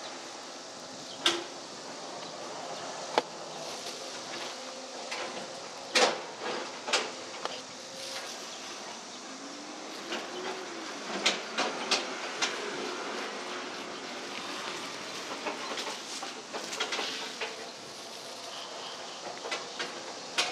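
A curved knife cutting into and prying apart a ripe jackfruit on a metal tabletop: scattered sharp clicks and knocks, the loudest about six seconds in and a cluster a few seconds later, over a steady background hum.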